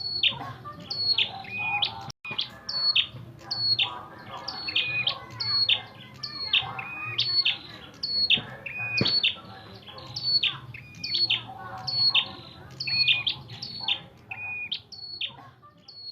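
A red-headed prenjak (prenjak kepala merah) giving its fighting call: sharp chirping phrases repeated about twice a second, each stepping down in pitch, over a faint low hum.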